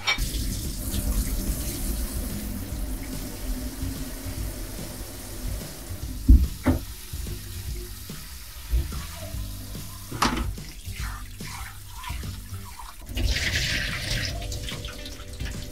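Water running into a stainless steel kitchen sink as boiled noodles are rinsed in a mesh strainer, with a sharp metal knock about six seconds in and a lighter one a few seconds later. Near the end, noodles and their cooking water are poured from the pot into the strainer with a brief hissing splash.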